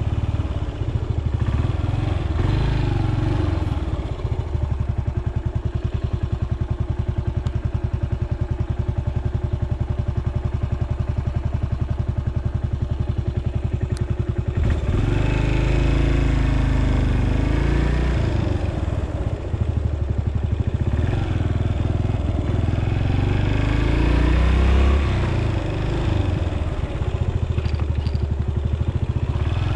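Stock Yamaha SR400's single-cylinder four-stroke engine running under way on the road, its firing steady for the first half; from about halfway the revs rise and fall repeatedly.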